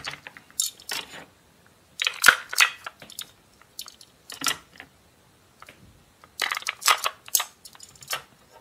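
Small plastic toy food pieces and a plastic bento box clicking and rattling as they are handled, in several short bursts with pauses between.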